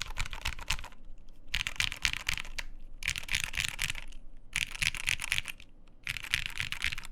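Typing on a Matrix 1.2 custom mechanical keyboard with lubed Gateron Black Ink linear switches, GMK keycaps and an aluminium plate. It comes as five bursts of rapid key clacks, each about a second long, with brief pauses between.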